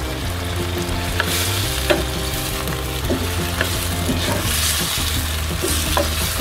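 Wooden spatula stirring a hot, sizzling sweet-and-sour sauce in a pan as cornstarch slurry is worked in to thicken it, with a few sharp knocks of the spatula against the pan. A steady low hum runs underneath.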